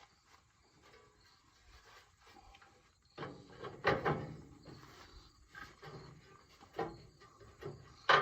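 Scattered metal clanks and rattling knocks of hand work on a hay baler's drive chains, with a burst of clatter about three seconds in and single sharp knocks near the end.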